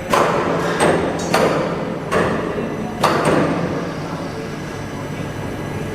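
A run of sharp hammer-like knocks, about six in three and a half seconds, each ringing briefly, over a steady machine hum with a thin high whine; the knocks stop after about three and a half seconds and the hum carries on.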